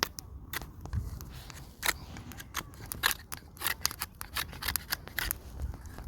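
Campfire crackling: wood popping and snapping in quick, irregular sharp clicks.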